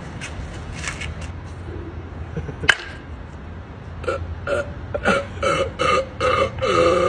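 A person's very loud burp, starting about four seconds in as a run of short, choppy belches that merge into one long belch near the end. A single sharp click comes a little before halfway.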